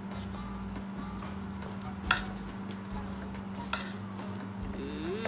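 Cutlery clinking against plates during a meal: a sharp clink about two seconds in and a lighter one near four seconds, over a steady low hum.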